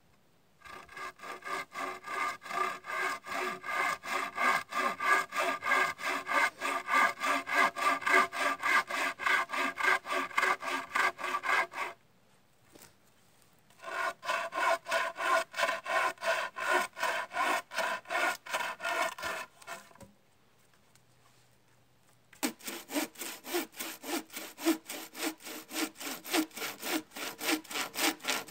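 Hand bow saw cutting through wooden poles in rapid, even push-pull strokes. The sawing stops twice briefly and then resumes, with the last stretch sharper and brighter in tone.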